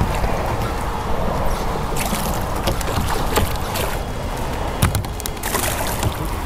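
Water lapping and gurgling against a kayak hull under wind noise on the microphone, with a few knocks. There is a splash about five and a half seconds in as the flounder is dropped back into the water.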